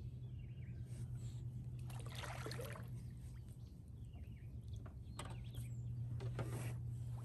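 Water sloshing and splashing in two surges, about two seconds in and again past five seconds, over a steady low hum.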